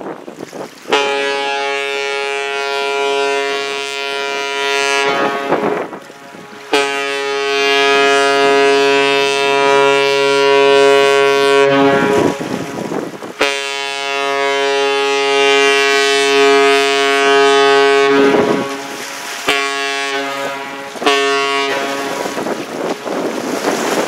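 A lake freighter's steam whistle blowing three long blasts and then two short ones, a deep chord-like tone with a plume of steam: the three-long-two-short pattern is the Great Lakes master's salute. Wind rushes on the microphone between blasts.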